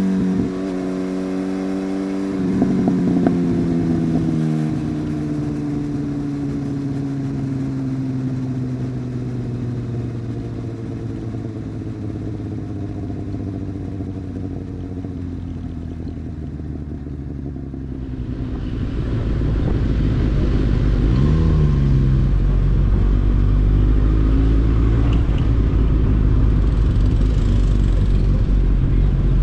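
Superbike's inline-four engine on the move, its note falling slowly and steadily as the bike slows, with a few sharp clicks near the start. About two-thirds of the way through, a louder low rumble of engine and wind builds up and holds.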